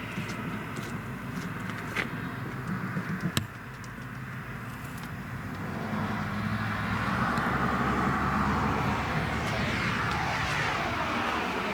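A vehicle passing by: its sound swells over several seconds and falls in pitch as it goes away. A few sharp clicks come in the first few seconds.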